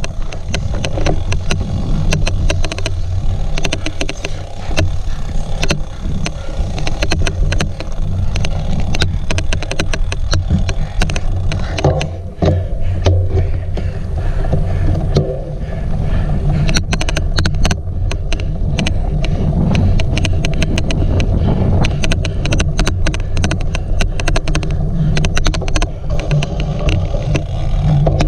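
Cyclocross bike ridden hard over rough ground, with a steady low rumble of tyres and wind. Frequent irregular sharp clicks run through it: an odd clicking noise.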